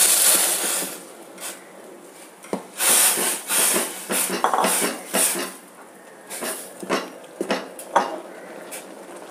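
Steel spoon stirring rice flour into boiling water in a stainless steel pot, scraping against the pot with sharp clinks. A hissing rush in the first second as the flour goes into the boiling water, then a run of scraping strokes in the middle.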